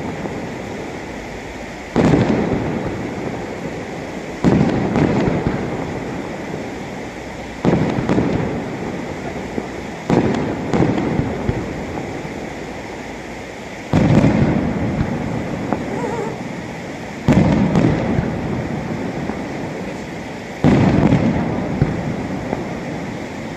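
Aerial firework shells bursting one after another: about seven booms a few seconds apart, each rolling away over two or three seconds, with scattered crackles between them.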